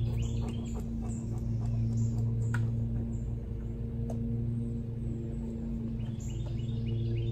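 Small birds chirping in quick runs near the start and again near the end, over a steady low hum, with a couple of sharp clicks in between.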